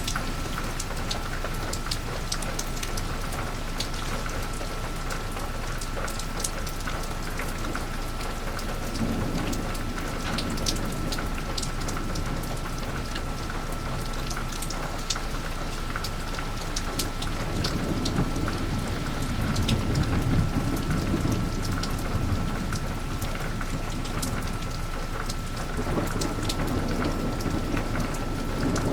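Heavy rain falling steadily, with many individual drops ticking close by. Thunder rumbles low about nine seconds in, rolls longer and louder from about seventeen to twenty-three seconds, and rumbles again near the end. A faint steady high tone sits under it throughout.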